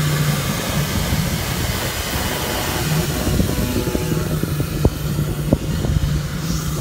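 Wind buffeting the microphone over a steady low engine hum, with a few sharp knocks in the second half.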